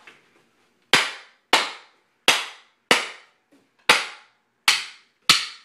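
Repeated sharp knocks on a wooden fireworks mortar rack held together with steel wedges, seven blows about one every 0.6 to 0.8 seconds, each ringing briefly, as the rack is struck to test its strength.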